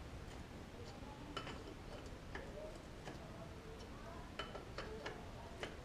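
Faint, sparse light clicks and ticks, about six in all, from hands working PTFE thread-seal tape onto a motorcycle oil drain plug.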